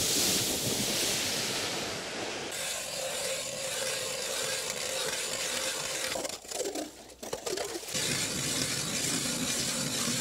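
Scraping and crunching on snow-covered ice, changing abruptly a few times. In the last couple of seconds a hand ice auger rasps as it is turned into the ice.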